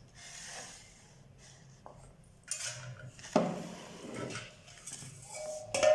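Idli moulds and dishes clattering and knocking together as they are lifted out of a microwave, with the loudest knock about halfway through.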